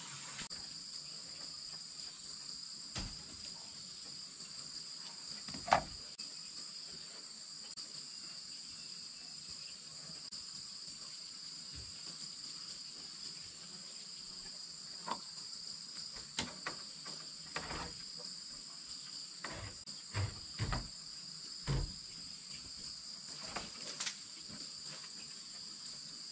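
A steady high-pitched insect chorus, like crickets, hums through the whole stretch. Scattered short knocks and clatters come over it, the loudest about six seconds in and several close together near the end.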